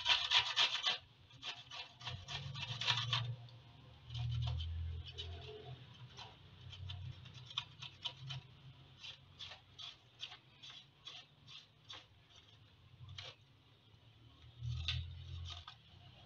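Chili pepper being grated on a stainless steel box grater: scraping strokes, a quick run in the first second, then spaced out at about one or two a second. A few dull low rumbles come and go underneath.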